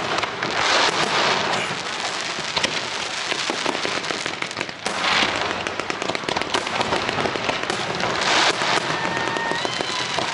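Fireworks display: dense, continuous crackling and popping of aerial shells, swelling into louder crackling bursts about a second in, midway, and again near the end. A faint whistling tone sounds near the end.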